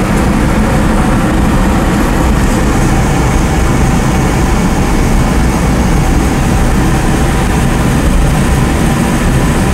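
Sonofresco 1 kg Profile fluid-bed coffee roaster running its blower at the start of a roast, hot air churning the green beans in the glass roasting chamber: a loud, steady rush of air.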